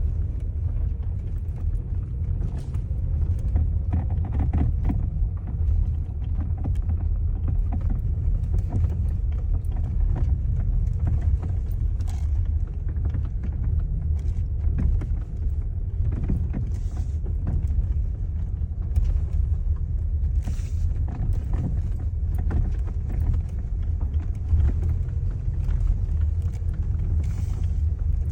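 Road rumble in a Hyundai Elantra MD on a rough road, with irregular knocks from under the steering column. The knocks come from play in the steering shaft's cardan joint.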